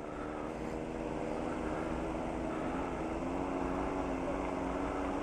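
Nissan Patrol's engine droning steadily as the 4x4 drives off-road under load, its pitch dipping slightly about three seconds in.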